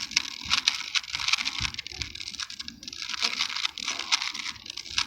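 Plastic Rubik's Cube layers being turned in quick succession: a dense, irregular clatter of small clicks.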